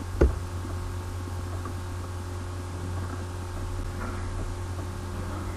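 Steady low electrical mains hum with a faint hiss underneath, and one short knock about a quarter of a second in.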